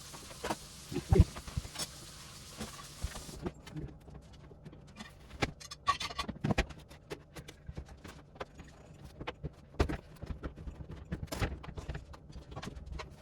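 Irregular clicks and knocks of hands working on a front-loading washing machine's door seal and the parts around it. A faint hiss stops about three and a half seconds in.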